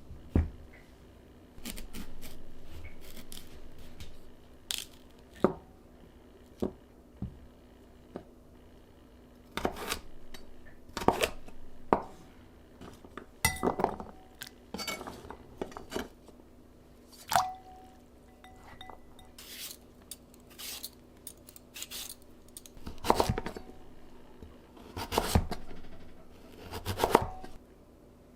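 Kitchen preparation sounds: irregular knocks and clinks of utensils against dishes and bowls, with a faint steady hum underneath.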